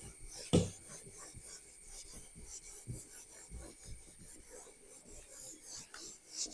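Faint scratching and rubbing strokes, like writing on a surface, with one sharper click about half a second in.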